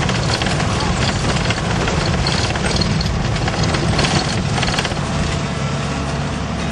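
1973 Land Rover Series 109 driving along a rough track, heard from inside the cab: steady engine and road noise with constant rattling from the body.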